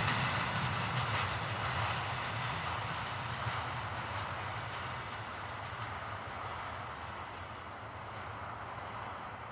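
A long loaded container train's freight wagons rolling away on the rails as the last car passes, their wheel and rail noise fading steadily.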